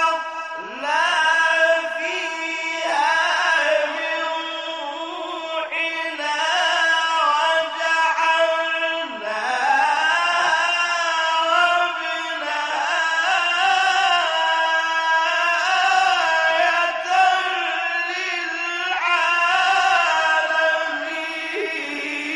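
A solo male reciter chants the Quran in the melodic, drawn-out tajweed style: one voice holding long, ornamented notes with slow rises and falls in pitch, pausing only briefly for breath.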